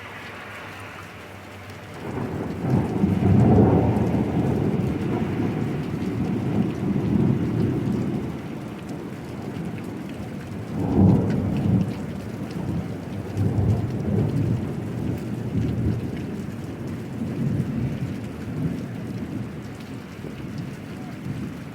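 Steady rain with rolling thunder. A loud low rumble breaks in about two seconds in, a second strong peak comes around the middle, and smaller rumbles fade away toward the end.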